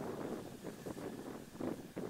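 Wind buffeting the microphone in irregular gusts, over faint outdoor background noise.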